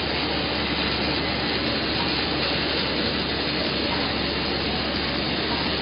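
Steady, even mechanical noise of workshop machinery running, with no distinct strokes or changes.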